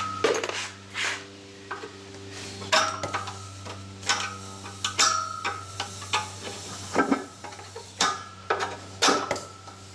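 Metal tools and engine parts clanking and clinking as they are handled, a dozen or so knocks, several with a short metallic ring, over a steady low hum.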